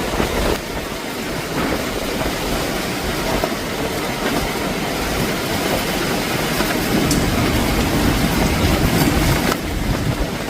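Steady rumbling noise of a moving vehicle, continuous and even throughout.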